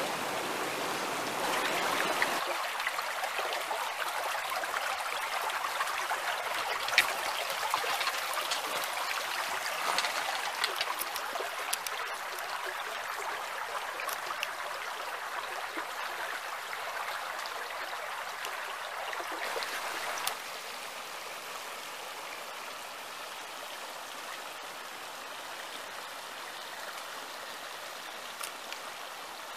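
Shallow stream running over stones and pebbles, a steady rush of water with a few sharp clicks. The sound changes abruptly about two seconds in and steps quieter about twenty seconds in.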